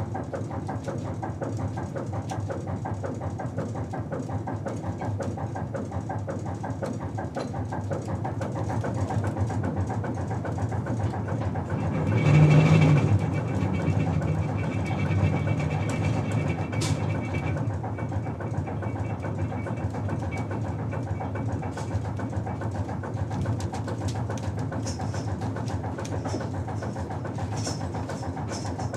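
Ship's below-deck ambience: a steady low engine rumble with a fast, light rattle. A little before halfway it swells louder with a low hum and a thin higher whine that holds for several seconds before fading back to the rumble.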